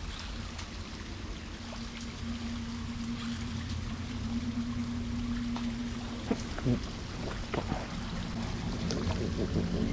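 Steady low rumble of water and a small craft on a reservoir, with a steady hum through the middle few seconds and scattered light clicks and taps.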